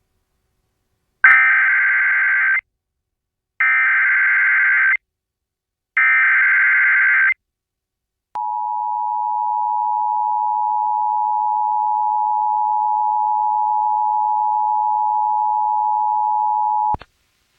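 Emergency Alert System activation: three short bursts of SAME header data, harsh digital warbling about a second apart, then the two-tone EAS attention signal (853 and 960 Hz together), held steady for about eight and a half seconds before cutting off sharply. This is the coded header and alarm that open a broadcast emergency alert, here a National Weather Service flash flood warning.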